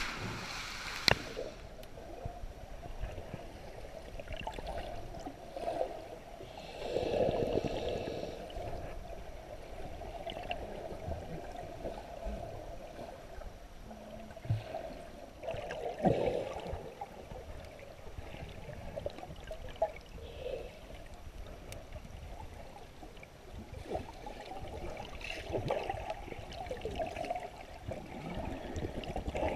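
Muffled water sloshing and gurgling heard through an action camera's waterproof housing as it moves at and under the surface of a pool. A sharp knock comes about a second in, and the sloshing swells louder several times.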